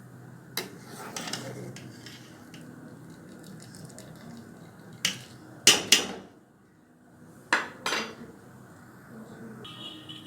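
Metal pots and kitchen utensils clinking and knocking in several sharp strokes, the loudest two close together about six seconds in, over a low steady hum.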